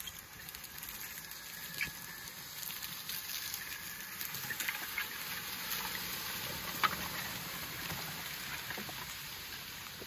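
Amazone Catros disc harrow cutting through dry corn stubble behind a quiet electric tractor: a dense crackling, rustling patter of stalks and soil with a few sharp clicks. It grows louder towards the middle as the discs pass close, then eases off.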